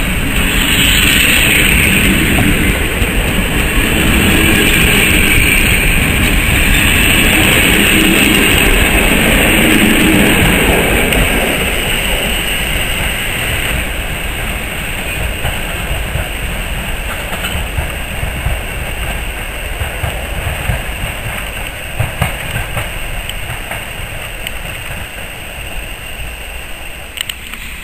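Passenger train coaches running past on the rails, loud and steady at first, then the sound slowly fading as the train draws away, with a few separate wheel clicks in the second half.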